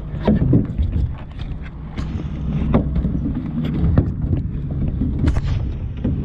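Scattered knocks and clunks from gear handled against a small aluminium boat's hull while a crab pot line is hauled in by hand, over a steady low rumble.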